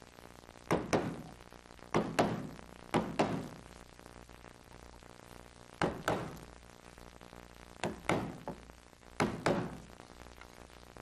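Wooden carver's mallet striking the handle of a carving gouge, driving it straight down into the wood to set in cuts around carved feathers. The knocks come in quick double taps, six pairs about a second or two apart, with a longer pause in the middle.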